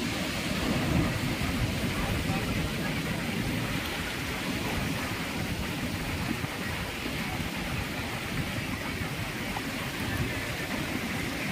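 Steady wash of sea surf breaking over a shallow coral reef, with wind rumbling on the microphone.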